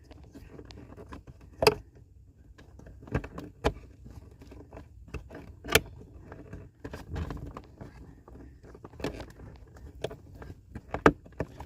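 Scattered clicks, taps and light scraping of an OBD connector and its cable being handled and threaded back through a mounting bracket, with a few sharper clicks spread through.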